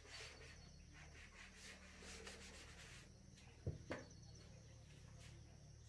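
Faint rubbing of a board duster wiped across a whiteboard in back-and-forth strokes, about two a second, stopping after about two and a half seconds. A little before four seconds in come two quick knocks.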